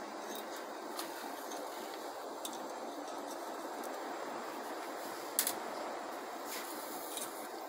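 Light metal clicks and taps of a small hand tool and valve collets against a 4D56U diesel cylinder head as the collets are flicked out, over a steady hiss. The loudest click comes about five and a half seconds in.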